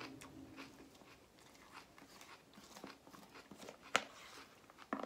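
A person chewing a mouthful of salad, with soft crunches and mouth clicks, and one sharp click about four seconds in.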